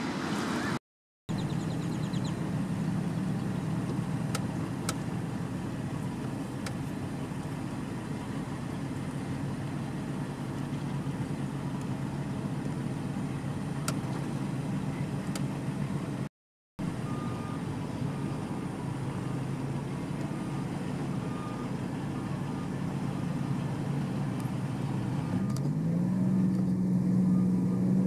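A motor vehicle's engine running steadily with a low hum. A little before the end its pitch rises and holds higher. The sound drops out briefly twice.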